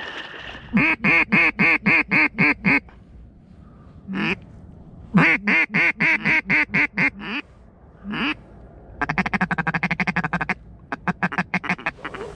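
Hunter's duck call blown in a series of evenly spaced quacks, a pause, then a second run of quacks. After that comes a fast chattering feed call and a last quick run of notes.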